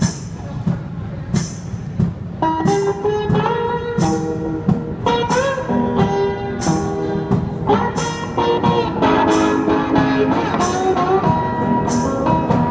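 An acoustic guitar and a washboard with a cymbal playing together live. The percussion keeps an even beat from the start, and guitar notes come in about two and a half seconds in.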